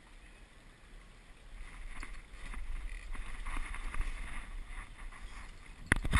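Walker Bay 10 sailing dinghy gliding through calm water: a wash of wind and water against the hull that builds about a second and a half in, then a cluster of sharp knocks near the end.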